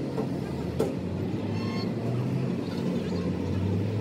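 A machine running with a steady low hum, with a single sharp knock about a second in.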